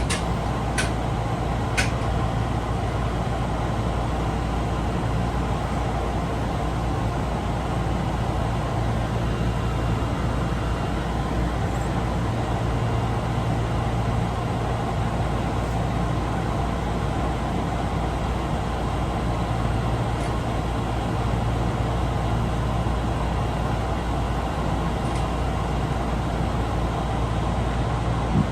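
Osaka Metro Tanimachi Line subway car 22962 running, a steady rumble of wheels and running gear with a low hum that swells and fades. There are a few sharp clicks in the first two seconds. The car is known for an abnormal running noise.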